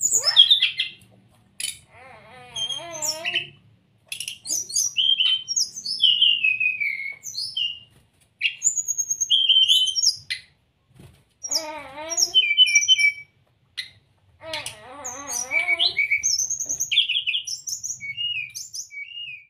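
Brown-chested jungle flycatcher singing: bursts of varied whistled notes, slurred phrases and short trills with brief pauses between them. About three times a lower, wavering, voice-like sound breaks in among the song.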